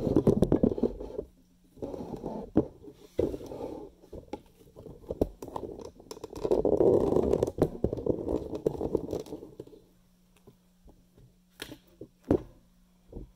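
Scraping and rubbing handling noise in uneven bursts, the longest in the middle, followed by a few sharp clicks near the end.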